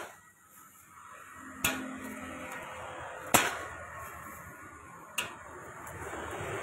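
Eggs cracked sharply against the rim of a steel wok, three times about every second and a half, over the hiss of eggs frying in hot oil that grows louder as more go in.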